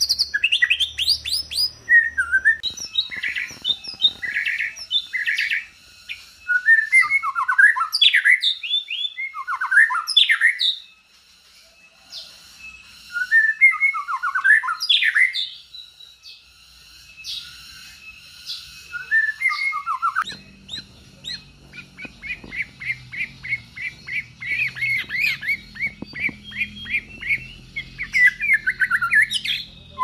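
White-rumped shamas singing: loud, varied whistled phrases that slide up and down, with short pauses between phrases. From about two-thirds of the way in, a quick run of short, sharp repeated notes.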